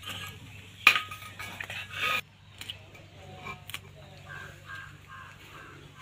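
A knife blade scraping and clicking on small climbing perch (kawai fish) and the concrete floor as the fish are scaled and cleaned. There is a sharp click about a second in, a stretch of scraping to just past two seconds, then lighter scattered clicks.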